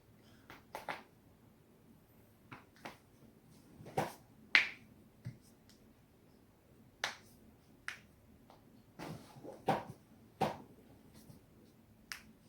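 Joints being cracked: about a dozen sharp pops at irregular intervals, the loudest about four and a half seconds in, with a quick run of pops around nine to ten seconds.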